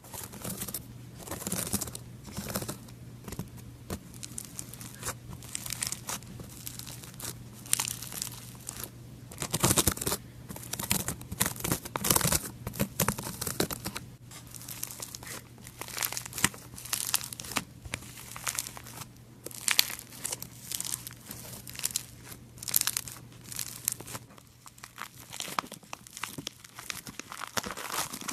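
Slime being worked, its trapped air bubbles popping in quick, irregular crackles.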